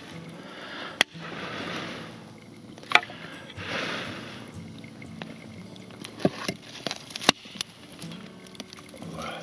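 Dry wood snapping and cracking: a handful of sharp cracks a few seconds apart, with smaller clicks and two spells of rustling hiss in between.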